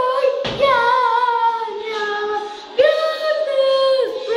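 A young girl singing a few long held notes with a wavering vibrato, largely unaccompanied.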